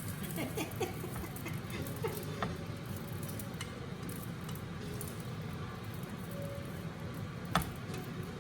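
Tofu skin deep-frying in hot oil, sizzling steadily, with small clicks of a utensil and one sharp knock about seven and a half seconds in.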